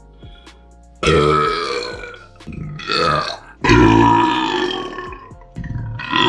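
A person belching deliberately, working the burps up on their own: a long loud belch about a second in, a short one around three seconds, and a longer one from near four seconds, each falling in pitch, with another starting near the end.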